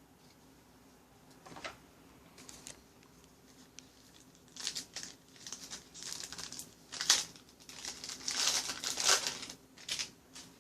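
Trading card pack wrapper being torn open and crinkled by hand, a few light crackles at first, then a dense run of crinkling and tearing in the second half.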